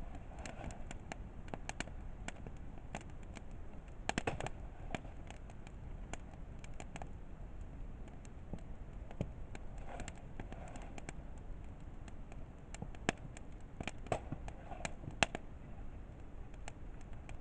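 Wood campfire crackling, with irregular sharp pops from the burning firewood. There is a quick flurry of pops about four seconds in and a few louder single pops later on.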